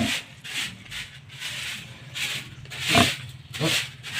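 Pigs grunting briefly among a string of short rustling scrapes, about two a second.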